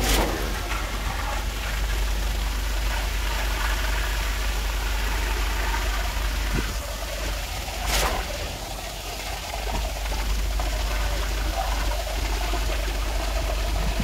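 Concrete pump's engine running steadily, a low rumble, with sharp knocks near the start and about eight seconds in.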